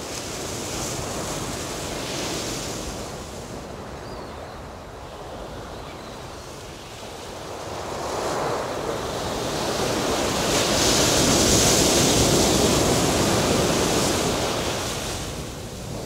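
Ocean waves: a steady wash of surf that swells into one big rushing surge about halfway through, then eases off near the end.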